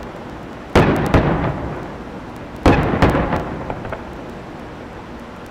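Aerial fireworks shells bursting: two loud bangs, about a second in and near the middle, each followed by a few smaller cracks and a long rolling rumble that fades away.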